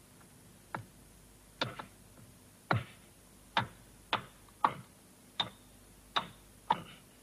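Hammer striking a chisel, chipping at a tunnel face: about ten sharp knocks, irregularly spaced, some in quick pairs.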